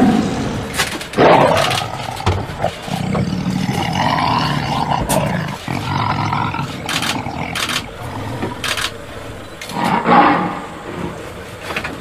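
Male lion roaring and grunting in a series of loud calls, the strongest about a second in and again near the end.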